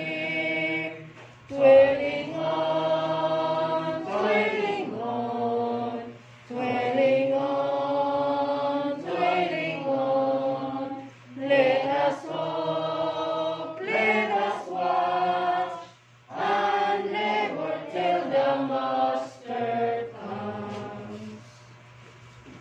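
A group of voices singing a hymn together, unaccompanied, in phrases of long held notes with short breaks between them. The singing stops about a second before the end.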